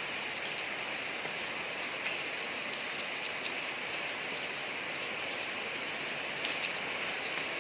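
Steady rain falling on a street, an even hiss with scattered drop ticks.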